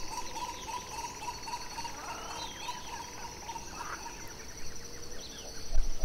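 Several birds calling at once: a run of short repeated notes, scattered chirps and slurred calls, and a quick series of ticks, over a steady high-pitched drone.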